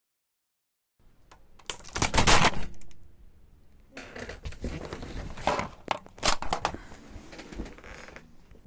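Product packaging being torn open and crinkled by hand: irregular crackling and tearing in two stretches, the louder one about two seconds in.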